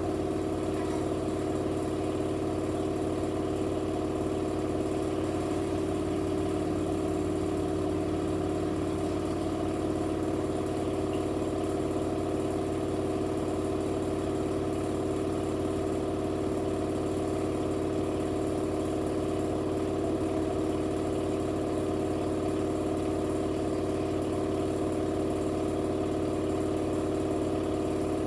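Electrolux washing machine in its spin cycle, the drum and motor running at a steady high speed with an even, unchanging hum and whine.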